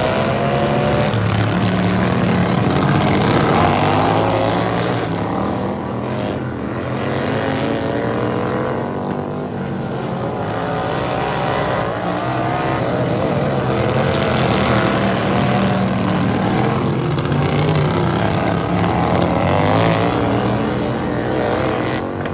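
Several racing lawn tractor engines running together, their pitch rising and falling as they rev and ease off through the turns of the dirt track.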